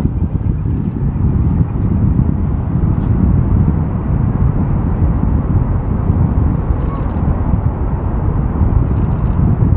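Boeing 747-400 freighter's four General Electric CF6-80C2 turbofans at takeoff thrust during the takeoff roll: a loud, steady, deep jet rumble as the aircraft accelerates down the runway.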